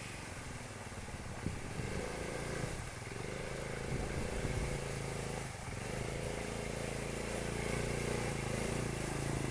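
Quad bike (ATV) engine running, its revs rising and falling, louder toward the end.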